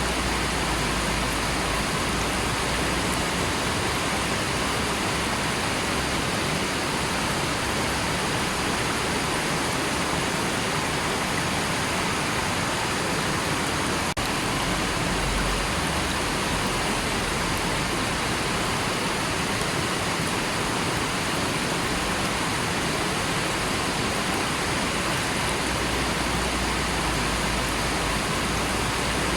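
River water rushing steadily, an even unbroken wash of sound.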